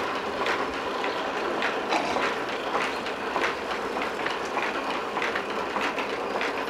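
Wooden spinning wheel turning, its frame and spindle clattering in an uneven rhythm of about two knocks a second as wool is drawn out into yarn.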